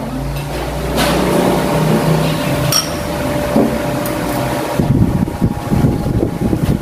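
A steady mechanical hum that turns into a fluttering low rumble about five seconds in, with a single clink of cutlery on a plate near the middle.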